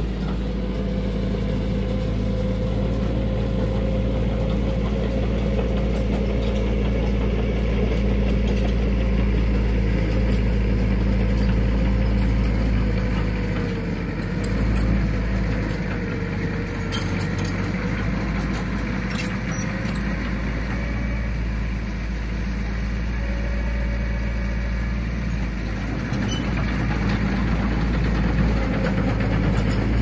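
Diesel engine of heavy earthmoving machinery running steadily, its pitch wavering a little, with scattered light clicks and clanks.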